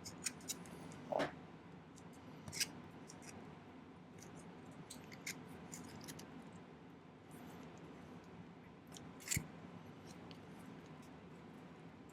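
Scattered small clicks and taps of metal hand tools against a sterling silver wire ring as its spiral curls are bent by hand, the loudest taps about a second in and near the nine-second mark.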